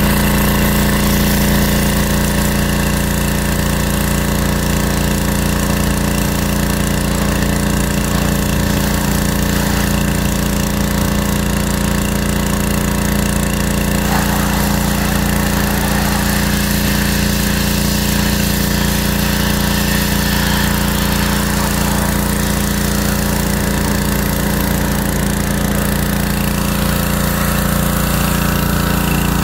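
Pressure washer running steadily, its motor humming under the hiss of the high-pressure water jet spraying a car's body. The spray sound shifts about halfway through as the jet moves to another part of the car.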